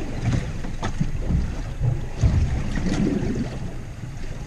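Wind buffeting the microphone over the sea around a small fishing boat, with water sloshing at the hull, uneven in loudness.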